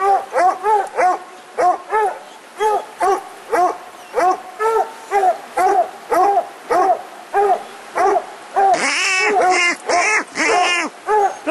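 Two coonhounds barking treed at a raccoon up the tree, a steady chop of short barks about three a second. Near the end a second, higher-pitched dog barks fast alongside the first.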